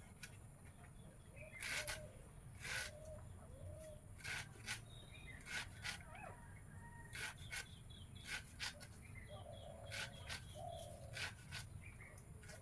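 Vegetables being sliced against a bonti, the upright curved floor blade: crisp, irregular cutting strokes, some in quick runs, every half-second to a second. Short bird calls sound in between.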